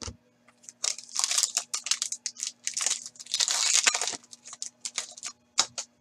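Foil wrapper of a hockey card pack being torn open and crinkled by hand, in two rustling stretches, one about a second in and a longer one from about three to four seconds. A few short crackles follow near the end.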